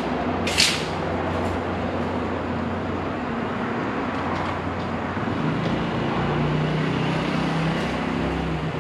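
Highway traffic: a steady rush of passing vehicles under the low drone of a heavy vehicle's engine, which moves up in pitch about halfway through. One sharp click less than a second in.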